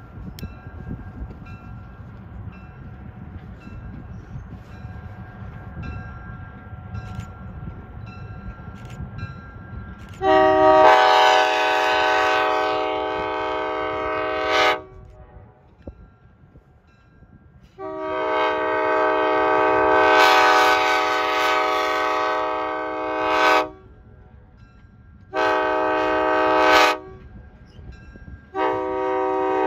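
EMD E8A diesel locomotive's multi-note air horn blowing the long, long, short, long grade-crossing signal as the train approaches a crossing. Before it there is about ten seconds of low rumble. The last blast starts near the end.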